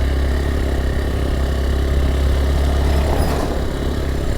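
Hero Xpulse 200 4V motorcycle's single-cylinder engine running steadily with a low drone while the bike is ridden.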